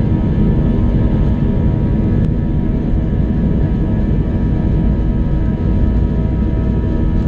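Airbus A321 cabin noise on the takeoff roll: the twin jet engines running at high power, a loud, steady roar with several steady whining tones on top.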